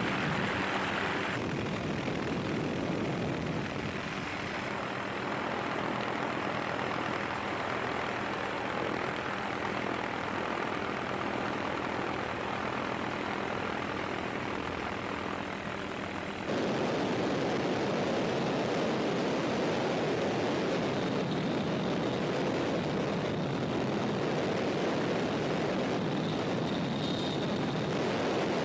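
Aircraft engine drone heard from aboard the aircraft: a steady noise with a few faint steady tones. It changes abruptly in tone about a second in, and again around sixteen seconds in, where it gets louder.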